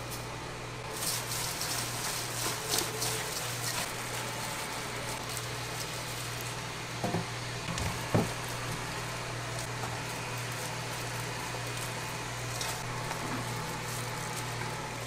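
Steady low mechanical hum, with scattered light clicks and two sharp knocks about seven and eight seconds in.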